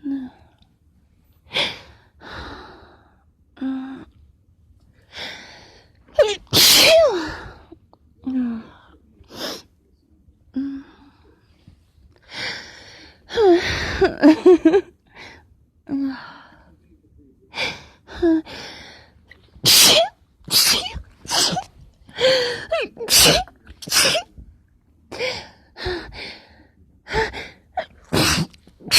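A person sneezing over and over in a long fit, each sneeze often preceded by a gasping in-breath. The sneezes come in quick succession in the second half, about one a second.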